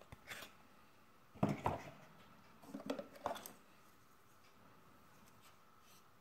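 Cardboard packaging being handled: three short clusters of scrapes and taps as the card insert is lifted out of the box and the parts beneath are touched.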